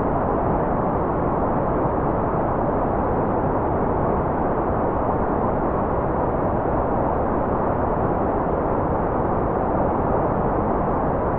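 Steady, unchanging white noise, dull and muffled, with little treble.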